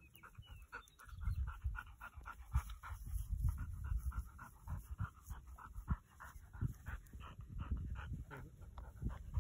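A retriever panting rapidly and hard, close by, out of breath after running a retrieve with a training bumper.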